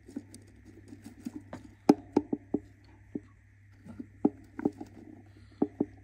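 Budgerigar hen shifting about in a wooden nest box, giving an irregular run of sharp taps and scratches on the box floor and paper bedding. The loudest tap comes about two seconds in.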